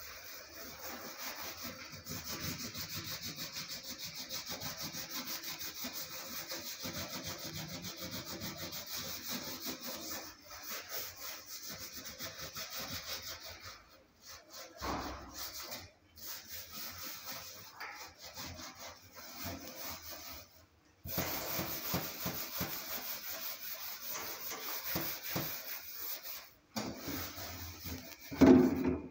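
Hand scrubbing inside a commercial oven: rapid back-and-forth rubbing strokes with a few short pauses, and one louder knock near the end.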